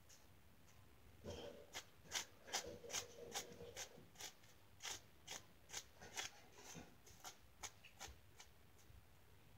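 Faint, quick scratchy strokes of a hairbrush being pulled through long hair, about two a second, starting about a second in.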